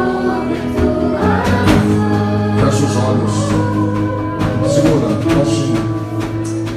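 Christian worship music: a voice singing a slow song over held chords.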